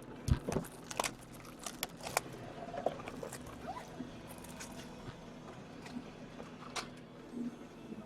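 A sealed box of hockey cards being handled and cut open: scattered clicks and light scraping of cardboard and wrapping, with a few sharper clicks in the first two seconds.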